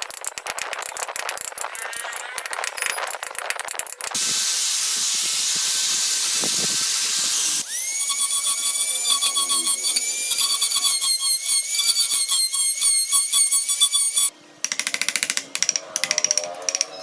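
Wood carving with tools. First comes rapid scraping and clicking. A steady hiss follows for a few seconds. Then a small power-tool motor spins up to a high, steady whine and runs for several seconds before it stops, and the clicking and scraping come back near the end.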